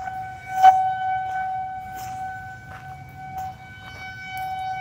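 Outdoor tornado warning siren sounding one steady tone that swells and fades a little, with a low rush of noise beneath it, a sign that a tornado warning is in effect. A single sharp knock comes about a second in.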